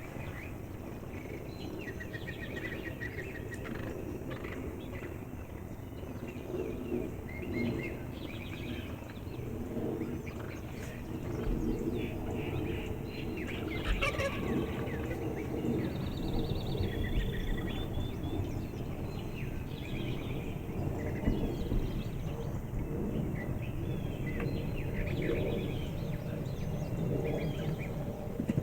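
Wild turkeys calling at close range: scattered series of short, repeated yelps and clucks over a steady low background noise.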